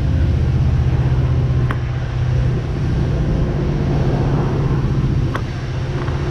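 Electric mobility scooter driving along a concrete path: a steady low motor hum over the rumble of its wheels, with two sharp clicks, one early and one about five seconds in.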